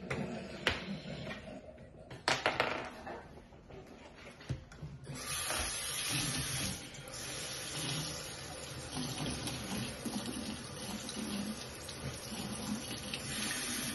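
Kitchen faucet running into a sink. It is turned on about five seconds in and runs steadily, with a few short knocks before it.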